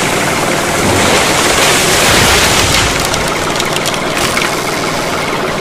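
A mini tractor's engine running steadily. About one and a half seconds in, a rush of hissing noise swells and fades again by about three seconds.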